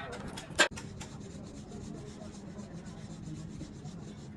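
Quick, even rubbing strokes on a surface, about seven a second, with one sharp click about half a second in, over a faint steady hum.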